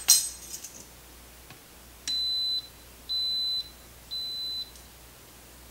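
Instant Pot electric pressure cooker beeping three times, one high tone of about half a second each, a second apart. This is the signal that the sauté program has begun heating. A sharp metal clink comes right at the start and is the loudest sound.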